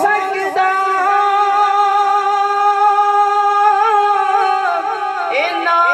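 A male naat reciter singing unaccompanied into a microphone, drawing out one long note with wavering ornaments over a steady held drone.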